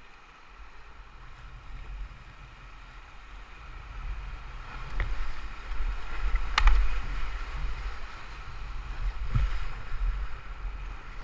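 Whitewater rapid rushing around a packraft, heard up close with a low rumble on the microphone, growing louder about four seconds in as the raft drops into the rapid. A few sharp knocks or splashes break through, the loudest a little past the middle.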